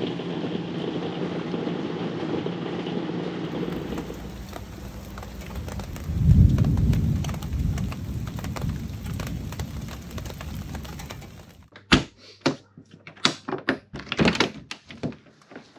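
Heavy rain in a thunderstorm, with a low roll of thunder about six seconds in. The rain noise drops away near the end, and a few sharp knocks follow.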